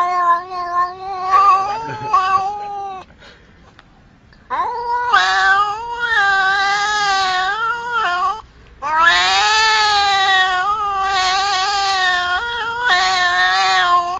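An angry domestic cat yowling: long, drawn-out wavering cries, one lasting about three seconds, then after a short pause a run of cries that goes on to the end with only brief breaks.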